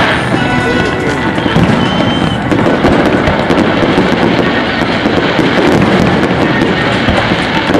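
Fireworks display: aerial shells and low bursts going off in a rapid, continuous string of overlapping bangs and crackles.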